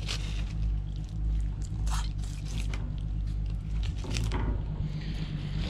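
A sharp fillet knife slicing and scraping through a black drum's flesh and skin on a cutting surface, in short irregular wet strokes, over a steady low hum.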